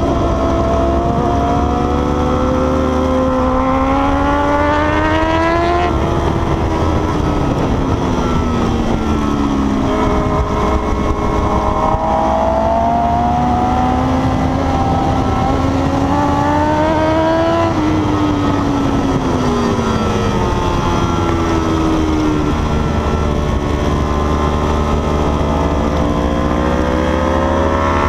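Sport motorcycle engine heard from a camera mounted on the bike at track speed, over steady wind rush. Its pitch climbs for about six seconds and drops away, climbs again for about eight seconds and falls about twenty seconds in, then climbs once more.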